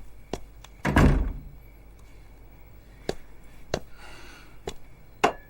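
A single heavy thump about a second in, followed by a few faint, scattered clicks.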